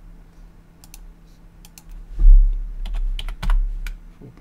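Typing on a computer keyboard: a few light key clicks in the first half, then a quicker run of keystrokes from about halfway, the first and loudest landing with a low thud.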